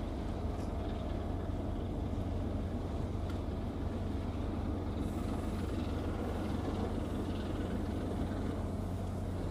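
Steady low drone of a Japan Coast Guard patrol ship's engines as the ship moves past under way.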